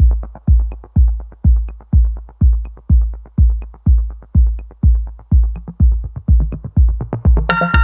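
Electronic dance music: a heavy bass kick drum about twice a second with quick hi-hat ticks, and a bright synth chord coming in near the end.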